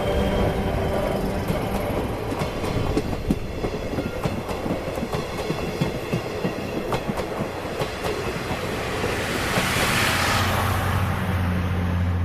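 Chichibu Railway Deki 108 electric locomotive and its train running by, wheels clicking over rail joints over a steady low electric hum. The hum swells louder near the end.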